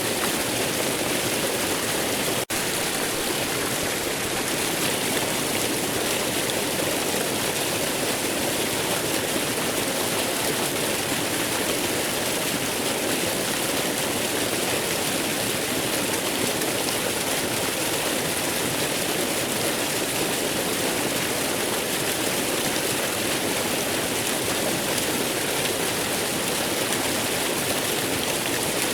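Waterfall rushing in a steady, even hiss of falling water, with a split-second dropout about two and a half seconds in.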